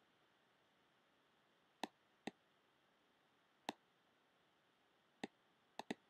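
Six sharp computer mouse clicks over faint room tone: a pair about two seconds in, two single clicks, and a quick double-click near the end.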